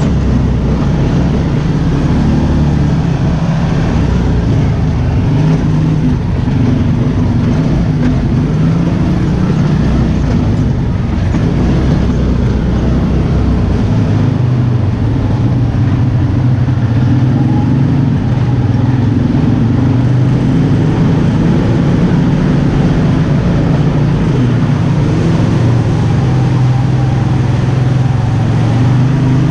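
ATV engine running while riding, its pitch rising and falling with the throttle over a heavy low rumble.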